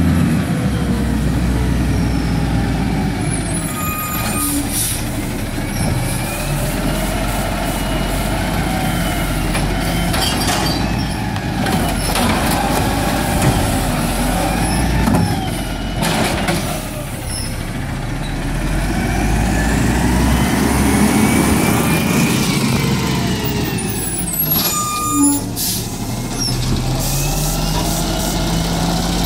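Peterbilt 320 garbage truck with an Amrep Octo automated side loader: its diesel engine runs as it pulls up and stops, with several sharp hisses from the air brakes. Near the end the engine revs up as the hydraulic arm grabs a cart.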